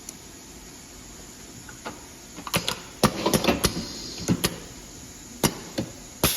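Semi-automatic soldering machine running a soldering cycle: a series of sharp mechanical clicks and knocks as its cylinders drive the soldering iron and parts, ending in a loud burst of air hiss near the end.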